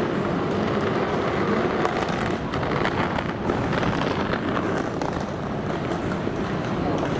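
Busy city street ambience: a steady wash of traffic and general street noise, with a scatter of small clicks and rattles around the middle.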